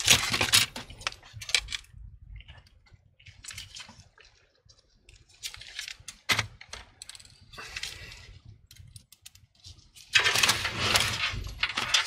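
Small metal clinks and rustling as screws and a Phillips screwdriver are handled, with a louder stretch of handling noise near the end.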